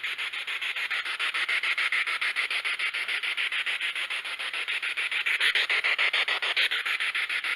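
Spirit box sweeping through radio stations, giving a steady static hiss chopped into rapid, even pulses many times a second.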